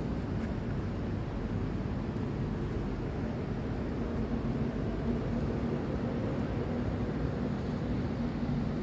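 Steady low background rumble with a faint hum and no distinct events.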